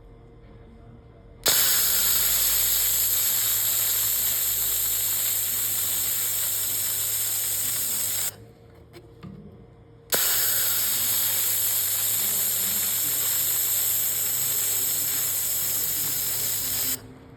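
Laser welder firing on stacked sheet steel in two long runs of about seven seconds each, a steady hiss that starts and stops abruptly with the trigger, with a faint low hum from the machine throughout.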